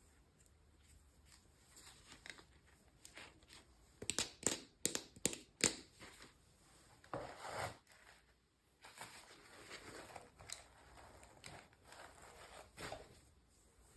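Packaging being torn open and crinkled by hand: a quick run of sharp crackles about four seconds in, then longer stretches of rustling.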